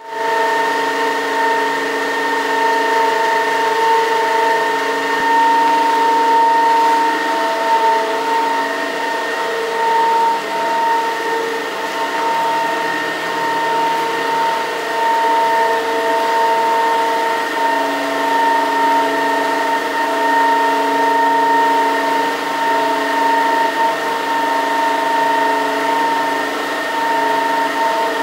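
A micro-hydro set, a single-jet vertical-axis Pelton turbine directly coupled to a permanent-magnet synchronous generator, running steadily on its test run: a constant whine with several fixed pitches over a rushing hiss.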